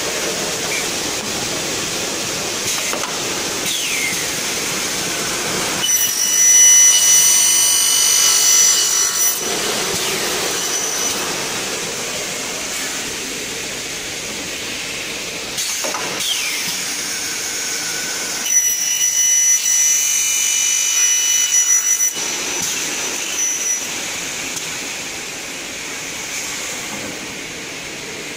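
F9 double-head aluminium cutting saw, with a 3 kW motor and 455 mm blade, running and making two dry cuts through aluminium profile without coolant. Each cut lasts about three seconds and comes out louder and higher-pitched while the blade is in the metal. The first cut starts about six seconds in and the second about eighteen and a half seconds in.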